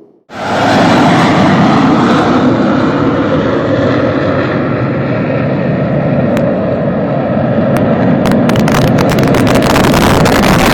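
Loud, steady roar of a military combat aircraft's engine, cutting in abruptly, with crackling in its last few seconds.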